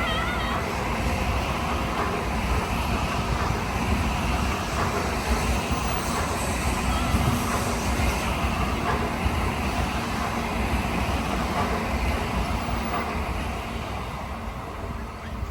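A train running, with a steady rumble of wheel and rail noise that dies down near the end.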